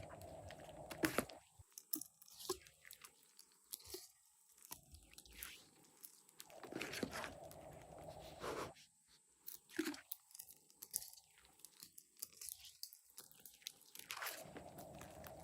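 Slime being squeezed and worked by hand, giving off irregular sticky crackles and clicks.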